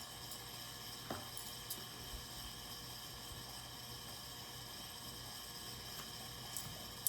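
Steady hum and hiss of a household heating and cooling fan, with a few faint short ticks about a second in and again near the end.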